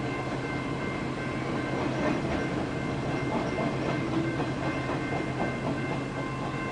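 Freight train of railcars rolling past, steel wheels clacking over the rail joints with a steady rumble.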